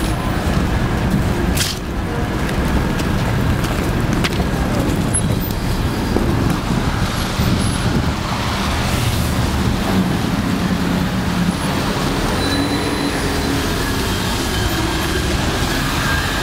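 City street traffic: cars and other vehicles driving past on a wet road, a steady rumble with tyre hiss.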